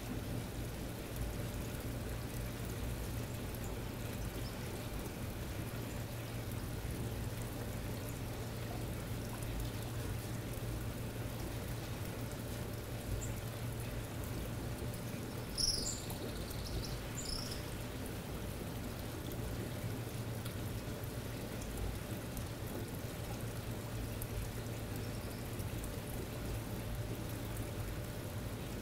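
Steady sound of running, pouring water with a low steady hum under it; a few short high chirps sound about sixteen seconds in.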